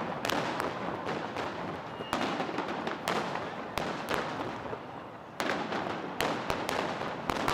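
Aerial fireworks going off in quick, irregular succession: many sharp bangs, several a second, over a continuous crackle and rumble.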